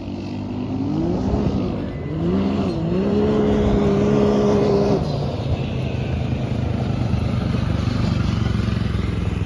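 Side-by-side off-road vehicle's engine accelerating: its pitch climbs, dips briefly about two seconds in, then climbs again and holds high. About five seconds in it drops off to a lower, steady run.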